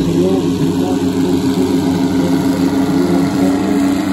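Terex TS14 motor scraper's diesel engine running steadily under load as the scraper loads its bowl with dirt.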